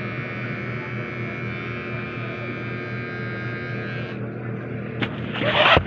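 Cordless hair trimmer buzzing steadily during a close trim, its high whine stopping about four seconds in over a steady low hum. Near the end come a click and a brief loud hiss.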